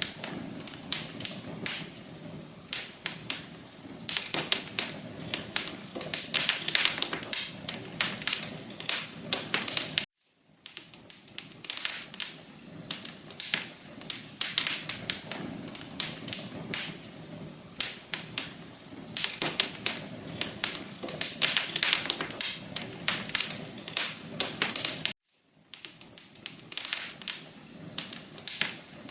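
Wood fire crackling in a fireplace: a steady soft hiss with dense, irregular pops and snaps. The sound cuts out twice for a moment, about ten seconds in and again near the end.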